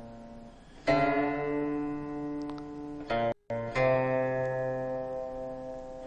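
Background music: a plucked string instrument sounds notes that ring on and slowly fade. New notes come in about a second in and again just after three seconds and near four seconds, with a brief dropout in the sound between them.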